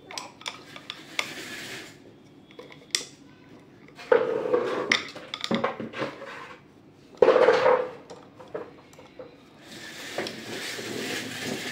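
Small metal parts and tools clinking and rattling as they are handled, with louder clattering about four and seven seconds in.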